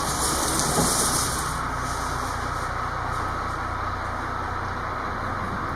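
Crane's engine running steadily outside, heard from inside the room as a low drone, with a brief hiss in the first second or so.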